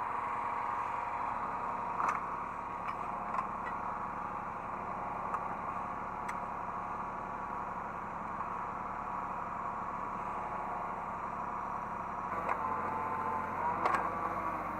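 Hydraulic excavator engine running steadily, heard from inside the operator's cab, with a few light knocks and clatters. About two seconds before the end the engine note changes and deepens.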